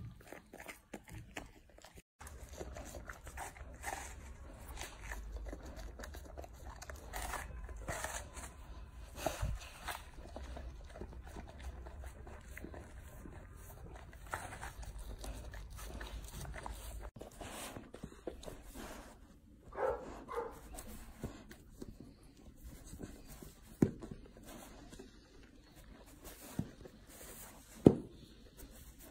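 Golden retriever eating, crunching and chewing food such as an apple and bread, in short separate crisp bites. A few sharper bites stand out in the last several seconds.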